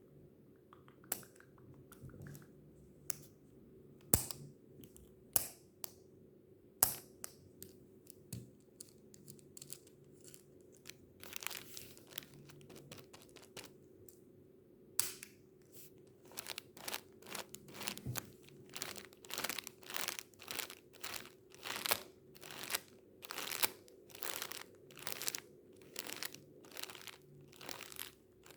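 Tissues crinkled and crumpled close to the microphone for ASMR: scattered sharp clicks and pops for the first several seconds, then a steady run of short crinkling rustles, about two a second.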